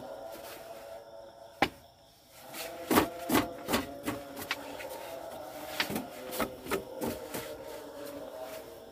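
Irregular knocks and clicks: a sharp one about a second and a half in, a cluster a little later, and more a few seconds after that, over a faint steady hum.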